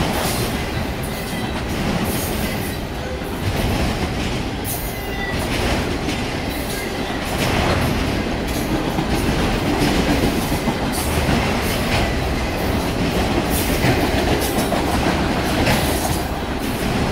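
Freight train of enclosed autorack cars rolling past close by: a steady rumble of steel wheels on the rails, with irregular clicks and clanks from the passing cars.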